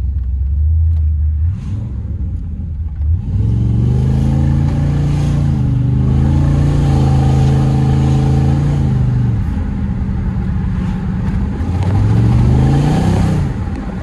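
LS-swapped Chevrolet Camaro Z28's V8 engine pulling under acceleration. The pitch climbs about three seconds in and holds high for several seconds, then drops off, climbs again, and falls away near the end.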